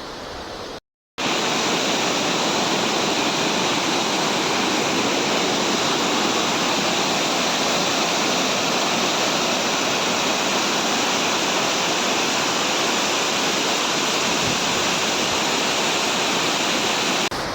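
Steady, loud rush of a waterfall crashing onto rocks at close range. The sound cuts out briefly about a second in, then comes back louder and holds even.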